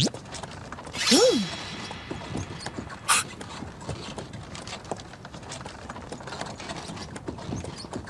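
Horse-drawn carriage rolling along: steady light clattering and creaking of the wooden carriage with horse hooves clip-clopping. A brief louder swish comes about a second in, and a sharp click about three seconds in.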